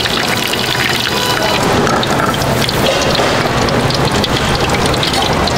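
Hot oil in a deep fryer sizzling and crackling steadily as battered twigim (Korean tempura) fries.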